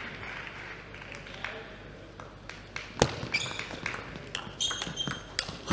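Table tennis ball being hit back and forth in a rally, sharp clicks off the rackets and the table coming faster from about halfway through, with short shoe squeaks on the court floor. A harder hit lands at the very end.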